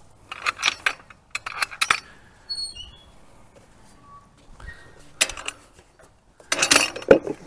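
Goats eating feed from a wooden trough: crunching and clattering in short spells, with a few faint chirps around the middle.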